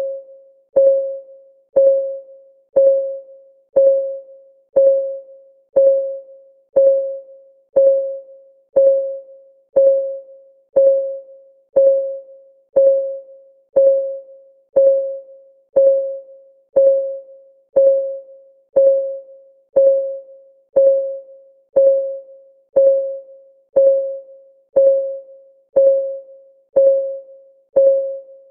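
Countdown timer's clock tick, one per second, steady and even. Each tick is a sharp click with a short, clear ringing tone that dies away before the next.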